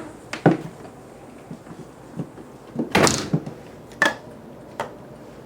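A door being handled: a few sharp knocks and thuds, with one longer, louder clatter about three seconds in.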